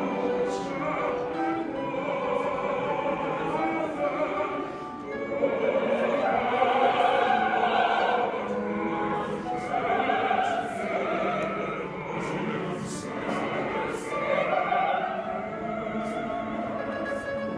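Choir singing in several parts with long held notes, swelling louder about five seconds in.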